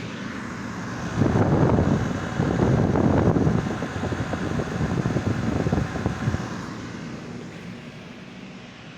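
Everstar portable air conditioner running in dry mode, its cold air stream buffeting the microphone in loud, gusty rumbles for about five seconds before easing off to the unit's steady hum.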